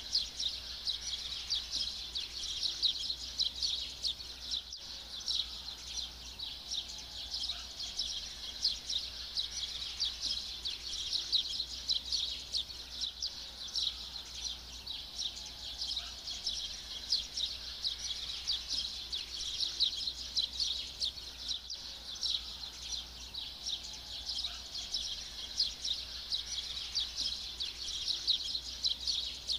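A dense, unbroken chorus of high chirping birds, with a few lower calls sliding in pitch now and then.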